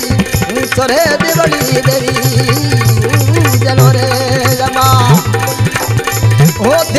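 Instrumental Rajasthani devotional folk music: a hand drum keeps a steady, busy rhythm over a low sustained drone, while a melody line bends and slides in pitch above it.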